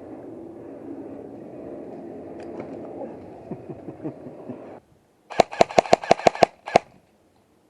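A quick string of airsoft gun shots, seven sharp ringing cracks in about a second and then one more. Before them comes a muffled rumbling noise that cuts off suddenly.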